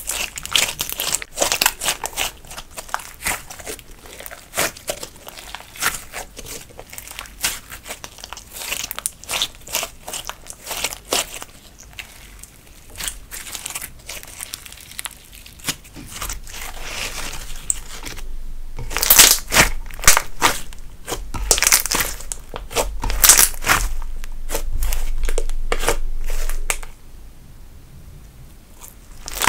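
Hands kneading, squeezing and stretching a lump of thick slime: a dense run of small sticky clicks, pops and crackles, growing louder about two-thirds of the way through and quieter near the end.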